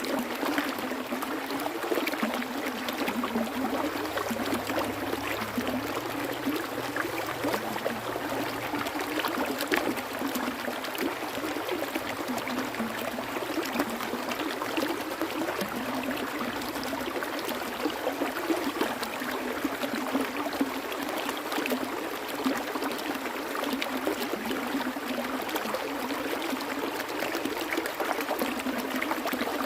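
Small stream of water flowing and trickling steadily, with a continuous burbling splash.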